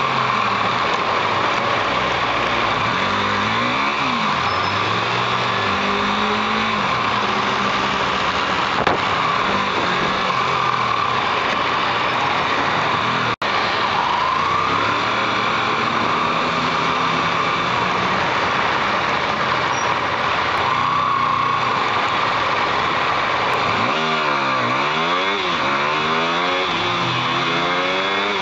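Motorcycle engine running under way in traffic, its pitch rising and falling as it accelerates and eases off, over a steady rushing noise of wind and road. Near the end the revs climb several times in quick succession as it accelerates through the gears, and the sound cuts out for an instant about halfway.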